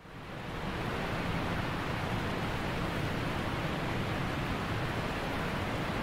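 A steady, even rushing noise that fades in during the first second and then holds level.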